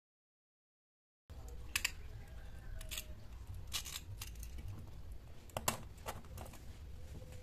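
Dead silence for about the first second, then scattered light clicks and taps of hands fitting a small lithium pouch battery and plate into a threaded-rod lamp frame.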